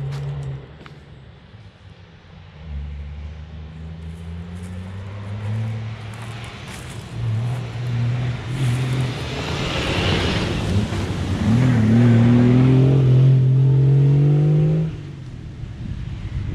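An off-road Jeep's engine approaching along a dirt track, then accelerating hard as it passes close, its pitch rising for a few seconds before the sound drops off suddenly about fifteen seconds in. Tyre and dirt noise swells as it nears.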